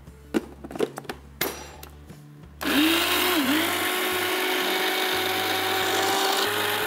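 A few clicks and knocks, then about two and a half seconds in a Preethi Zodiac mixer grinder starts and runs steadily with a whine, grinding chopped mango into a puree without water. Its pitch dips briefly just after it starts, then holds steady.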